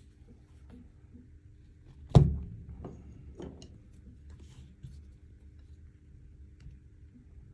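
A cardboard phone box set down hard on its edge on a table: one sharp thunk about two seconds in, followed by two or three lighter taps and quiet handling rustle.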